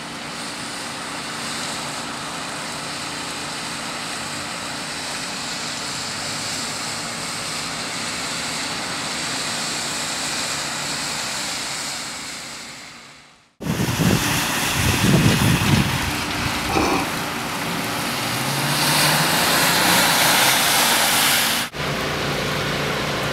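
Steady hiss of rain and traffic on a flooded street. After a cut about halfway through it is closer and louder: wind gusting on the microphone and a car's engine rising as its tyres swish through standing floodwater. A second cut near the end brings a steadier wash of street noise.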